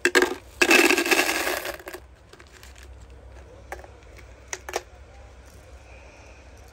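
A handful of buttons clattering together in a burst of rattling lasting about two seconds at the start, followed by a few single light clicks.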